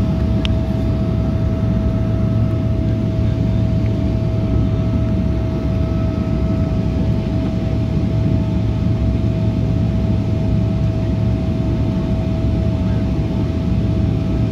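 Boeing 777-300's jet engines heard from inside the passenger cabin at the start of the takeoff run: a loud, steady low rumble with a single steady whine held throughout.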